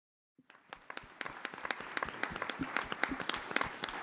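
Audience applauding, starting about half a second in and quickly building to steady clapping.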